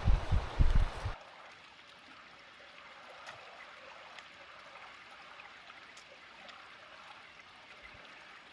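Wind buffeting the microphone for about the first second, then stopping abruptly. After that, the faint, steady rush of a mountain stream.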